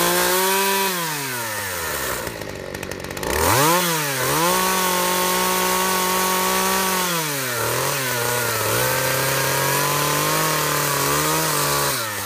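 Corded electric chainsaw cutting into a log: its motor whine rises as it speeds up and sinks in pitch when the chain bites into the wood. It cuts out about two seconds in, revs back up, and stops near the end.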